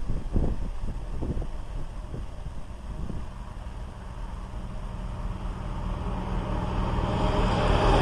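A motor vehicle approaching on the nearby road, its steady running noise growing louder over the last few seconds. A few soft knocks come in the first three seconds.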